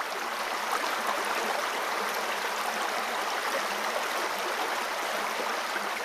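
Waterfall rushing: a steady, even hiss of white water falling over rock, with little low rumble.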